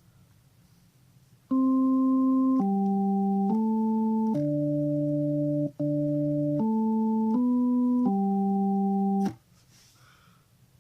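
Electronic keyboard playing a short tune by ear, a copy of a sound effect: eight held notes, each steady and even with no fading, the same note played twice in a row in the middle.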